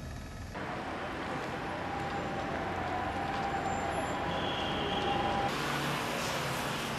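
Street ambience dominated by a steady wash of road traffic noise, starting abruptly about half a second in, with a faint steady high tone through most of it.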